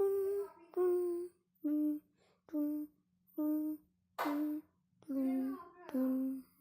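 A voice singing a wordless melody in short 'dun' syllables, about eight separate notes that step down in pitch.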